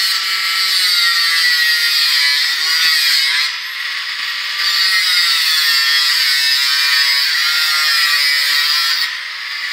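Dogs whining and squealing excitedly while being petted, a continuous high, buzzy whine that wavers in pitch and eases off briefly about three and a half seconds in.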